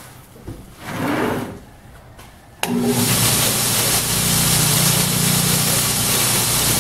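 Grizzly knife-blade belt sander grinding Micarta knife handle scales. A loud, steady grinding noise starts suddenly about two and a half seconds in and holds. The old, worn belt is burning the Micarta rather than cutting it down.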